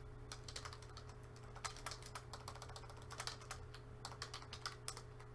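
Typing on a computer keyboard: a quick, irregular run of faint key clicks, over a steady low electrical hum.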